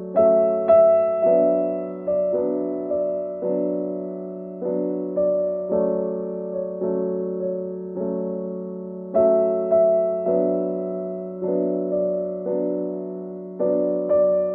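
Background electric piano music: gentle, evenly paced notes over a steady low held tone.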